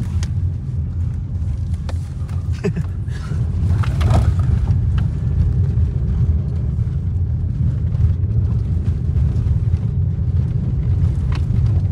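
Inside a car driving on an unpaved road: a steady low rumble of engine and tyres, with a few scattered knocks.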